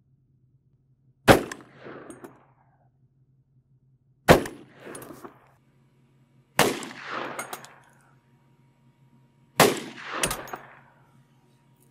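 A 10mm TNW Aero Survival pistol-braced carbine with a 10.25-inch barrel fires 180-grain rounds: sharp reports about three seconds apart, the last two less than a second apart. Each report is followed by about a second of echo.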